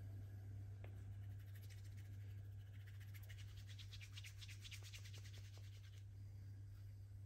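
Hands rubbing briskly over skin in a massage, a quick run of scratchy strokes that starts about a second and a half in and stops near six seconds. A steady low hum lies underneath.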